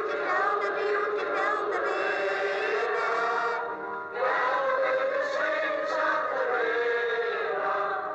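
Music of long held, slightly wavering notes in several voices, with a short dip about four seconds in.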